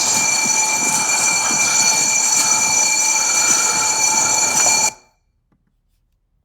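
Garbage truck's bell ringing rapidly and continuously, a steady metallic ringing that announces the garbage collection. It cuts off suddenly about five seconds in.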